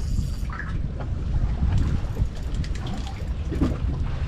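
Wind buffeting the microphone, a steady low rumble, with scattered small clicks and knocks.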